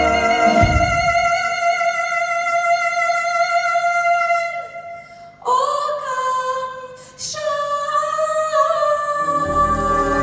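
A woman singing jazz with a big band, holding long notes with vibrato while the band drops out about half a second in; after two short breaths between phrases, the full band comes back in near the end.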